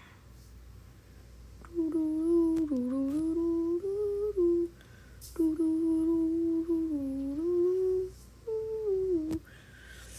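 A person humming a slow tune in three phrases of held notes that glide gently up and down, with a few faint clicks between them.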